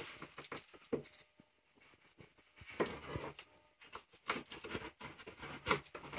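Knife blade slicing through packing tape along the seam of a cardboard box, with short scratchy scrapes and small taps at uneven intervals.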